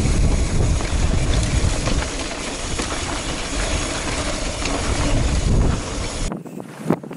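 Mountain bike descending a dirt trail, heard through an action camera: heavy wind buffeting on the microphone with tyres rumbling over loose dirt and small knocks from the bike. About six seconds in the sound cuts to a thinner, quieter rush.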